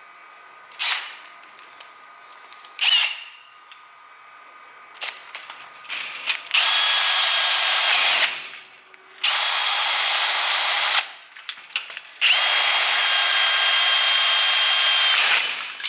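Power tool cutting apart a metal sliding-door lock: two short blips, then three runs of a few seconds each, a steady high whine over a harsh hiss.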